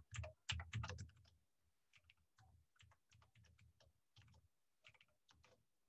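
Computer keyboard typing: a quick run of keystrokes in the first second or so, then fainter, scattered key presses.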